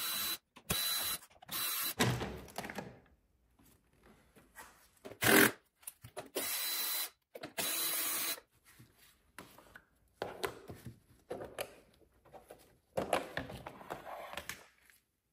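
A cordless power tool run in several short bursts of a second or less, with a steady high whine, as parts are unscrewed at the engine to get at the spark plugs. After that come scattered light clicks and the clatter of parts being handled.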